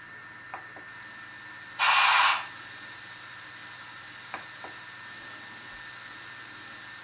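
Märklin BR 39 model steam locomotive's ESU LokSound V4.0 decoder playing standing-still steam sounds through its small speaker: a short, loud burst of steam hiss about two seconds in over a faint steady hiss, with two pairs of light clicks.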